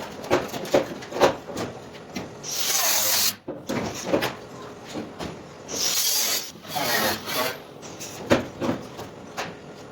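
Bodywork on a van's sheet-metal panels: irregular sharp knocks and several short bursts of harsh, high scraping hiss.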